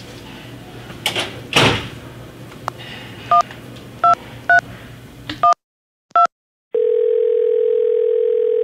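A phone number being keyed in: five short two-note keypad beeps, after a couple of rustles. The room noise then cuts out, and a single steady ringing tone of about two seconds sounds as the call rings through.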